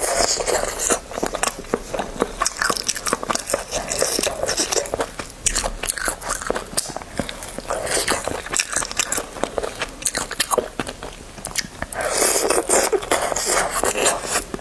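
Close-miked mouth sounds of a person biting and chewing meat off a spicy braised rabbit leg: a dense run of small sharp clicks and smacks, with louder spells near the start and near the end.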